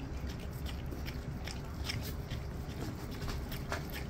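Eating noises close to the microphone: irregular wet clicks and smacks of biting and chewing over a low steady rumble.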